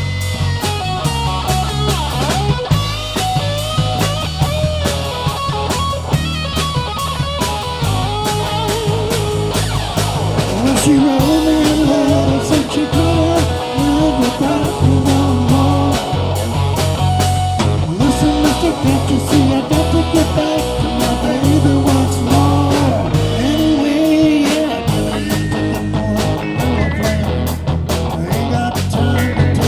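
Live rock band playing with electric guitar to the fore over bass and a steady drum beat; a wavering lead line comes in about ten seconds in.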